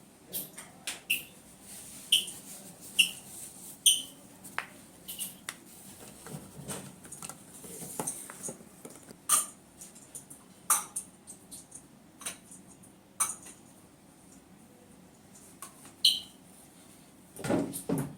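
Irregular sharp clicks and several brief high squeaks from handling during a chiropractic adjustment session, with a louder rustling burst near the end.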